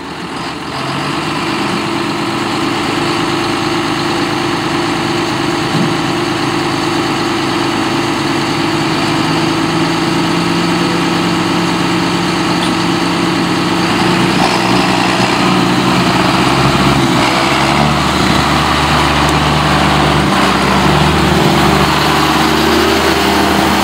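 John Deere 6920 tractor's six-cylinder diesel engine running steadily, its sound turning deeper and heavier a little past halfway as the tractor drives off.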